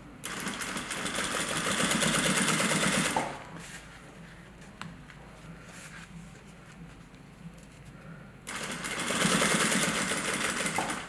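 Sewing machine stitching a rolled hem through waxed canvas in two runs of about three seconds each, the needle strokes fast and even, with a pause between runs.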